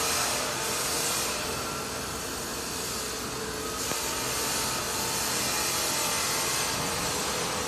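Small carousel turning, its drive making a steady whirring noise.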